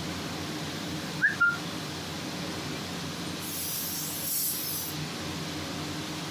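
Steady machine hum with a low drone, two short high chirps about a second in, and a hiss of air lasting about a second and a half near the middle.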